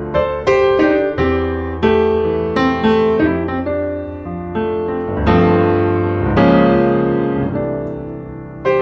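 Background piano music: single struck notes and chords, each ringing and fading before the next, at an unhurried pace.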